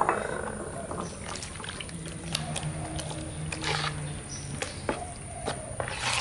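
Ground fish paste and coconut milk being stirred and mashed together in a plastic bowl with a spoon: irregular wet squelching and sloshing with small scrapes and clicks of the utensil.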